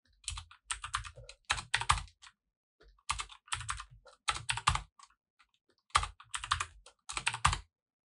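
Typing on a computer keyboard: quick keystrokes in short bursts, with brief pauses between them.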